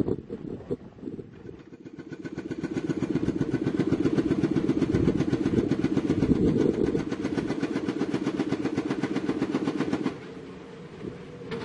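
Hydraulic rock breaker on an excavator hammering rock in a rapid, even run of blows over the machine's diesel engine. The hammering starts about two seconds in and stops near the end, leaving the engine running.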